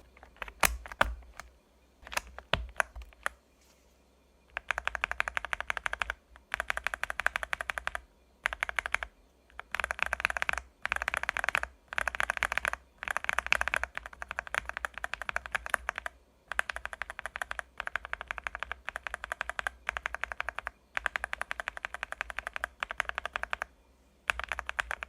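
Mechanical keyboard with Batknight Blue clicky switches being typed on. A few single keystrokes come first, then fast runs of clacking key presses with short pauses between them.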